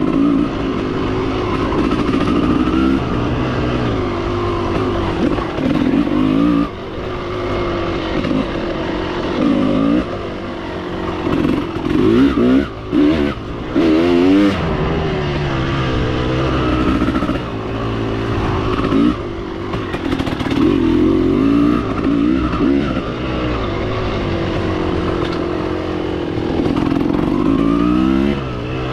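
Motorcycle engine being ridden hard, its pitch rising and falling over and over as the throttle is opened and closed. There are a few sudden brief dips in level along the way.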